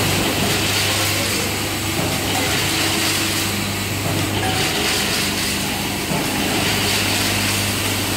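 Vertical form-fill-seal packing machine with its counting feeder running steadily while bagging screws and small metal hardware: continuous mechanical clatter and hiss over a low hum.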